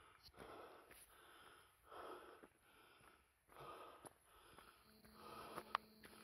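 Faint heavy breathing close to the microphone, about one breath a second, as of a runner catching breath after exertion. A single short click near the end.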